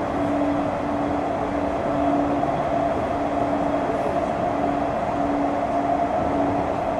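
Running sound inside the motor car of a JR East E231-900 series electric commuter train (MoHa E231-901, Hitachi IGBT-VVVF inverter): steady rumble of the wheels on the rails with a hum that holds one pitch, broken by short gaps.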